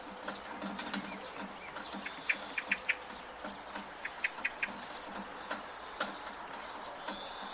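Steady rain with irregular drips and taps from a gutter, and a bird calling twice in quick runs of three or four short, high chirps.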